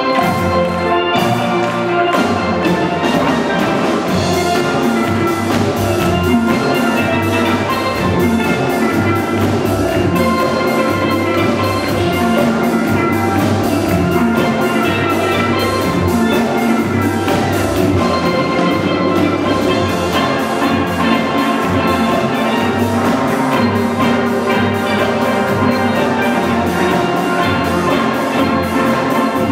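Steel pan ensemble playing a lively calypso tune, many pans striking quick, bright pitched notes over a steady bass line, with a drum kit keeping the beat.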